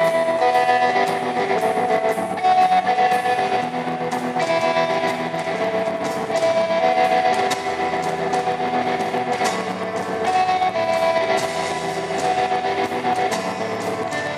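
Live band music led by an electric guitar strummed in a steady rhythm, with held notes ringing underneath.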